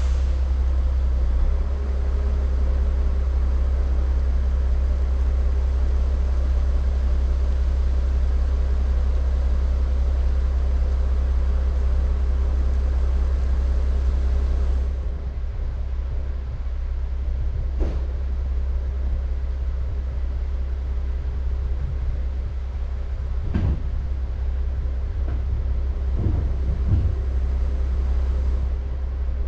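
Log truck's diesel engine idling steadily with a deep rumble. About halfway through it settles slightly quieter, and a few short knocks and clanks come in the second half.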